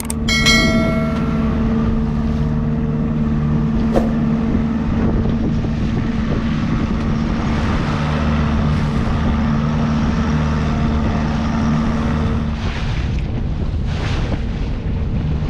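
Boat engine running steadily under way, a constant hum. A brief ringing tone fades out in the first second.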